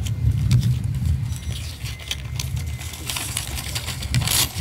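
Low, uneven rumble with scattered sharp clicks, and a short rush of hiss about four seconds in.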